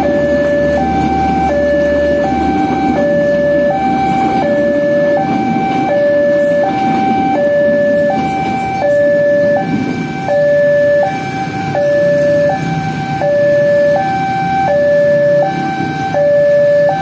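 Railway level-crossing warning alarm sounding a two-tone electronic signal, switching between a higher and a lower tone about every half second, without a break. Under it is the rumbling noise of a passenger train passing over the crossing in the first few seconds.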